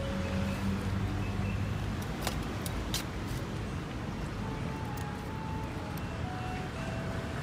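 Steady urban street ambience with traffic running, a low hum underneath, and a few sharp clicks about two and three seconds in.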